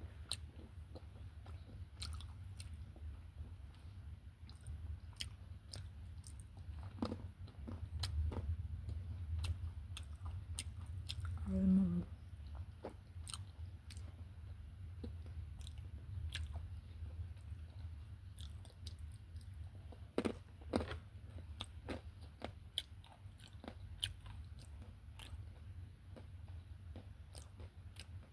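Close-up chewing and crunching of whole almonds and cashews, many irregular crisp cracks over a steady low hum, with a short voiced hum about twelve seconds in.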